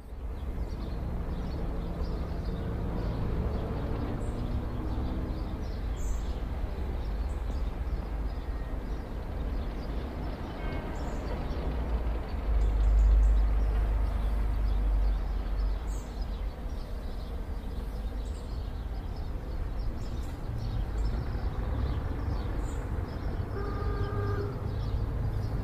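City street ambience: a steady low rumble of traffic, which swells louder about halfway through.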